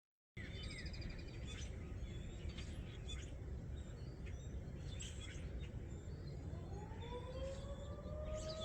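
Scattered bird chirps over a steady low background rumble. About six and a half seconds in, a Federal Signal 2001-130 electromechanical warning siren starts winding up for its test, one tone rising in pitch and then levelling off.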